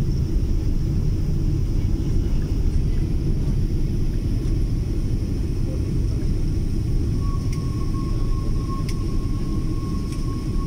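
Airliner cabin noise during the landing rollout on the runway: a steady low rumble that eases a little in the second half as the aircraft slows. A faint thin whine comes in about seven seconds in, with a few faint ticks.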